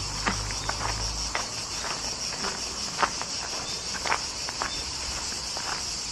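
Crickets chirring steadily in a high band, with irregular footsteps crunching over dry leaves and earth, the loudest about three and four seconds in. A low rumble is heard for about the first second.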